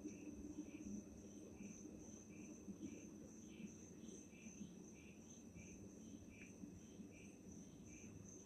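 Night insects chirping faintly: a steady high trill with a lower chirp repeating unevenly about once or twice a second, over a faint low hum.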